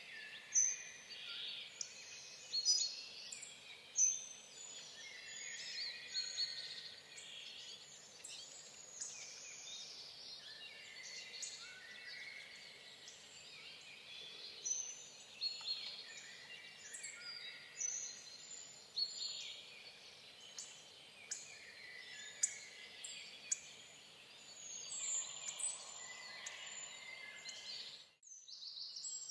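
Many small songbirds chirping and singing at once, a dense mix of short calls and trills, broken by a brief gap in the sound near the end.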